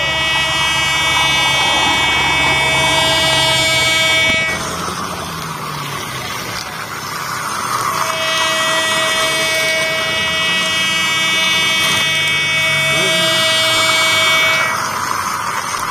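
Toy LRT train running on its plastic track, its electronic horn giving a steady buzzing tone over the noise of the running toy. The tone breaks off about four seconds in and comes back from about eight seconds until just before the end.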